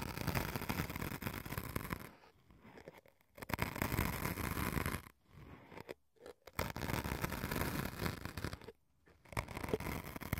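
Pointed wooden sticks scratching and poking into white foam cubes set on binaural microphone ears, giving a close, crackly scratching. It comes in four bouts of one to two seconds, with brief pauses between them.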